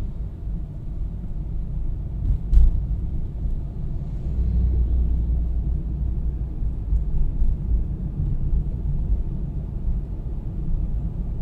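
Low, steady rumble of a car driving slowly, with engine and road noise heard from inside the cabin. A single brief knock sounds about two and a half seconds in.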